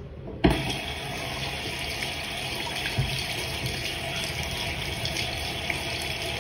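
Water tap turned on about half a second in, then running steadily into a sink basin and splashing over small hands held in the stream.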